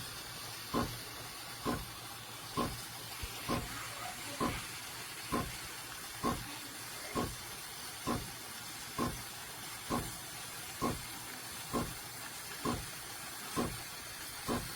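Breville Barista Touch Impress's automatic steam wand frothing milk in a stainless steel jug: a steady hiss with a regular pulse a little more than once a second.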